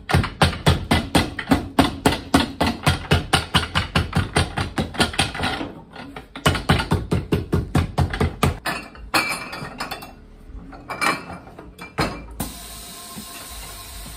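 Cobbler's hammer rapidly tapping a freshly heated Vibram rubber lug sole down onto a boot's midsole to bond it, about five blows a second in two long runs with a short pause, then a few scattered taps.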